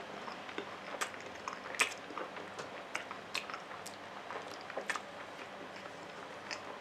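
A person chewing a mouthful of hamburger steak with the mouth closed: irregular wet clicks and smacks, about a dozen, one louder smack near two seconds in.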